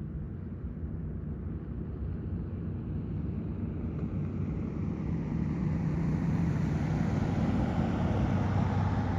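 Boeing 737 jet engines at takeoff power, heard from afar during the takeoff roll: a steady rumble that grows gradually louder and brighter as the plane comes toward the listener.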